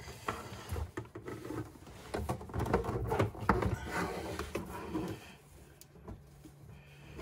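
Handling noise of a rubber dishwasher drain hose being pulled and worked behind a garbage disposal in a sink cabinet: irregular rubbing, scraping and light knocks against the cabinet and fittings. It eases off about five seconds in, leaving a faint low hum.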